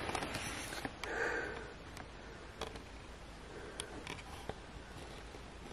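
Quiet room tone with a short breathy noise about a second in and a few faint clicks scattered through.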